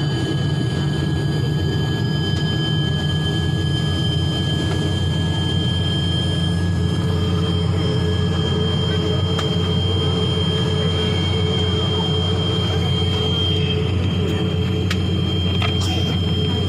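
Airliner engines heard from inside the passenger cabin: a steady drone with a constant low hum and a thin high-pitched whine over it.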